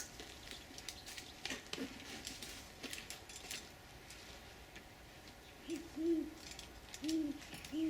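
Great horned owl hooting: a series of low, short hoots, two close together about six seconds in and two more near the end. Faint clicks and rustles come before them.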